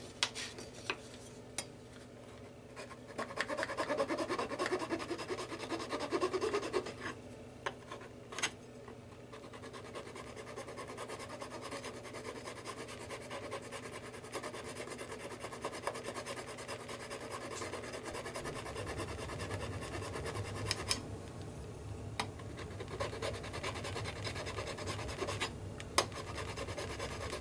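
Hand tool rubbing and scraping on an HO scale locomotive's white metal frame, in irregular strokes with a few sharp clicks between them, knocking down a casting bubble and removing paint so a ground screw will make good contact.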